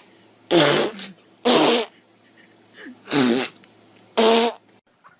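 Four loud farting sounds, each a short rough burst of about half a second, spaced about a second apart.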